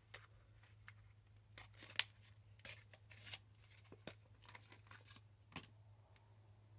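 Small cardboard box being torn open by hand: faint, scattered tearing and rustling with a few short sharp clicks, over a low steady hum.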